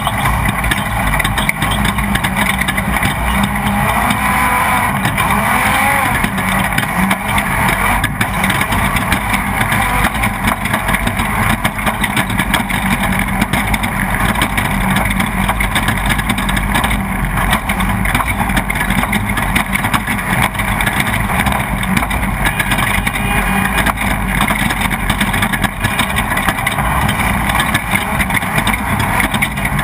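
Off-road race vehicle's engine running steadily at racing pace, heard from on board, loud and unbroken.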